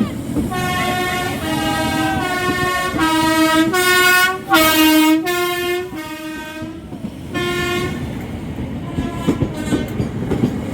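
A train horn sounded as a run of about nine short notes stepping between higher and lower pitches, played like a tune, with the loudest notes in the middle. After that the horn stops and the train is heard rattling along the track.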